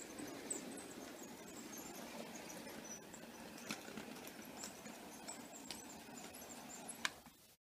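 LEGO Union Pacific Big Boy model locomotive running on plastic LEGO track: a steady rumble from its wheels and drive, with scattered high squeaks and light clicks as it crosses the curves and switch points. One sharp click near the end.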